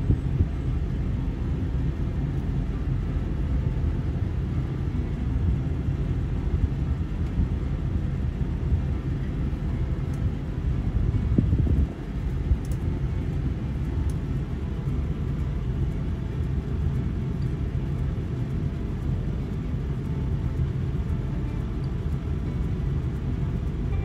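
Steady low engine rumble of idling and slow-moving farm vehicles, with a brief dip about halfway through.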